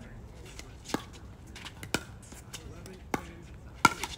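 Pickleball paddles hitting a plastic pickleball in a doubles rally: sharp pops about once a second, with fainter ticks between, the loudest hit near the end.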